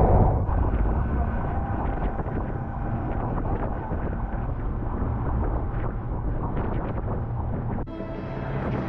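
Yamaha 115 hp outboard motor running a small open boat at speed, with water rushing along the hull and wind buffeting the microphone. The sound changes abruptly about eight seconds in.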